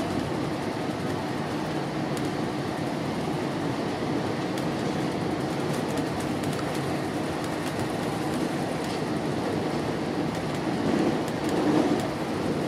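GO Transit bilevel commuter coach in motion, heard from inside: a steady running rumble, briefly louder about eleven seconds in.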